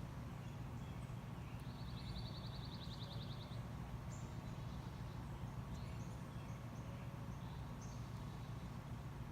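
Faint background songbirds: a rapid, evenly pulsed trill lasting about two seconds, starting about two seconds in, then scattered short chirps. A steady low hum runs underneath.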